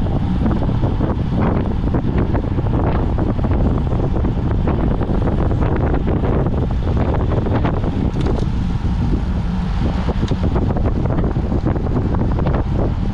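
Steady, heavy wind rushing over the microphone of a road bike moving at about 35 km/h, with the low rumble of the ride underneath.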